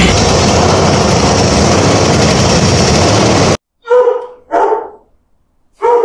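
A steady, loud noise that cuts off suddenly about three and a half seconds in, followed by a dog barking three times.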